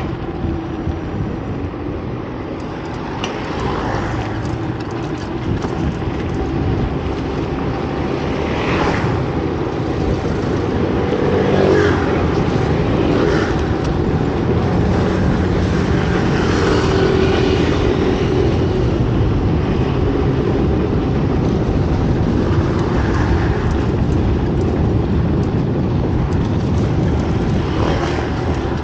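Continuous street traffic noise, with vehicles running and passing; it swells slowly toward the middle.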